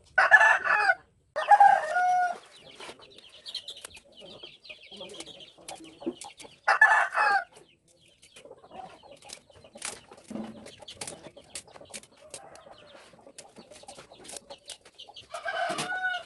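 A rooster crowing in loud, short calls: twice at the start, once about seven seconds in and again near the end. Between the calls come light rustles and clicks of pechay (bok choy) leaves being handled in a plastic basin.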